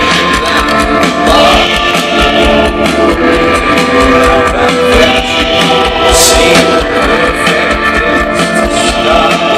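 A live rock band playing loud through the festival PA, heard from among the audience: electric guitars over drums, with a keyboard part.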